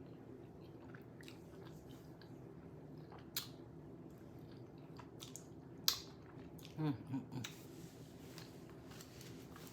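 A person chewing a shrimp quesadilla, with several sharp wet smacks of the mouth, the loudest about six seconds in, and a brief hummed murmur about seven seconds in, over a steady low room hum.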